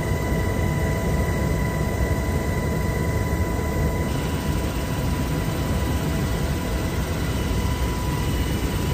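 UH-60 Black Hawk helicopter heard from inside the cabin in flight: a steady, loud rotor and engine rumble with a steady high whine over it.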